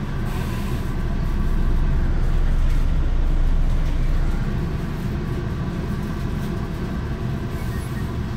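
MBTA commuter rail train running on the track, heard from inside a passenger coach as a steady low rumble. It grows louder about a second and a half in and eases back after about four seconds.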